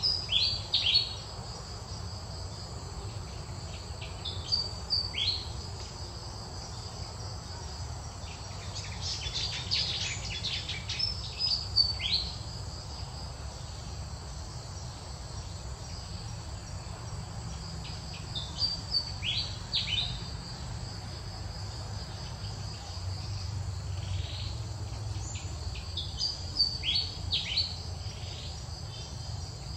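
Insects shrilling steadily in the vegetation, with clusters of short, high calls falling in pitch every few seconds.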